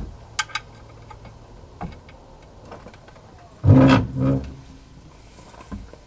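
Hydraulic floor jack being worked under a car: scattered sharp metal clicks and clanks, and one louder low clunk with a brief hum a little past halfway.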